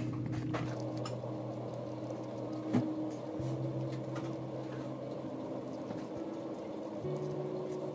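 Soft background music of slow, held notes that change pitch every second or two, with one sharp click about three seconds in.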